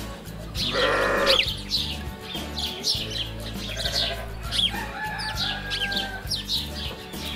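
A farm soundscape over soft background music: small birds chirp throughout, and a chicken gives a loud call about a second in. A fainter, drawn-out animal call follows around five seconds in.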